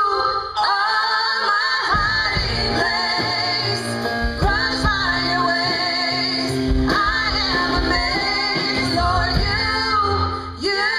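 A song performed live: a woman singing held, wavering notes over guitar accompaniment.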